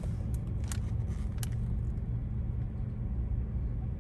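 Low steady rumble inside a Volkswagen car's cabin as it stands at a red light with the engine idling. A few short, sharp clicks come in the first second and a half.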